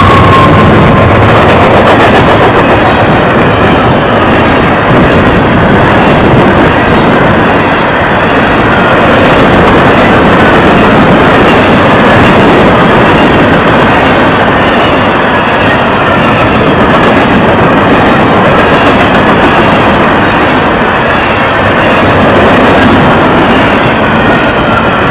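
Freight train passing close at about 49 mph: diesel locomotives going by at the start, then a long string of empty ballast hopper cars with a loud, steady rumble and clatter of wheels on rail.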